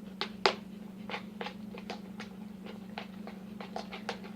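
Sticky homemade slime being mixed and worked by hand, giving a run of short, irregular wet clicks and squelches, with a louder one about half a second in. A steady low hum runs underneath.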